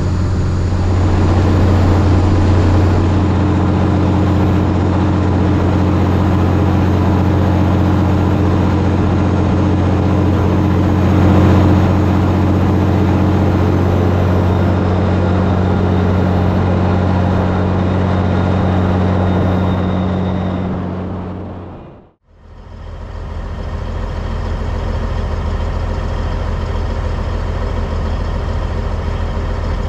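Caterpillar 3406B diesel of a cabover Peterbilt running steadily at highway speed, a deep, even drone. It fades out about 22 seconds in, and a steady diesel idle follows.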